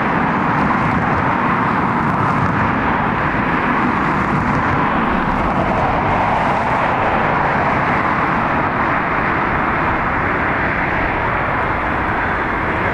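Airbus A321neo jet airliner on final approach with landing gear down, its engines and airframe making a steady rushing roar.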